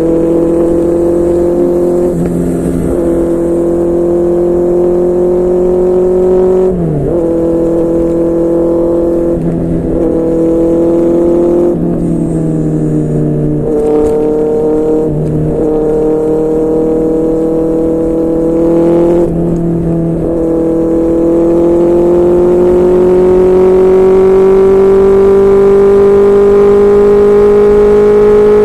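QJMotor SRK600's inline-four engine running through a Yoshimura R11 aftermarket exhaust while the bike is ridden, the note briefly breaking and jumping every few seconds as the rider changes gear. Over the last several seconds the note climbs steadily as the engine pulls in one gear.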